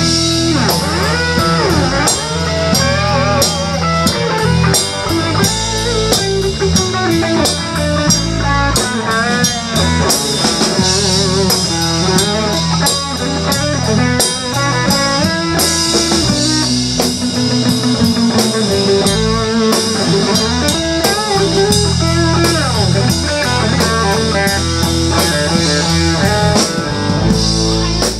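Live blues band playing: electric guitars over a bass guitar and a drum kit with cymbals, with a lead guitar line whose notes bend and waver.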